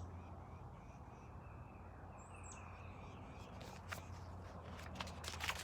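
Faint outdoor ambience: a steady low hum with small birds chirping now and then, including one high falling chirp about halfway through. A few faint clicks come near the end.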